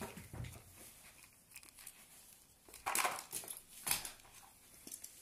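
Plastic toy cars being picked up and handled: rustling and light knocks, with two louder rustling scrapes about three and four seconds in.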